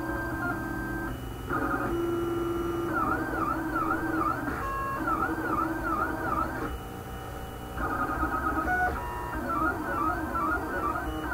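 Stepper motors of a homemade wooden-frame 3D printer whining as the print head moves. Their tones jump in pitch every second or two and, for a few seconds at a time, warble quickly up and down. They drop quieter for about a second around the middle.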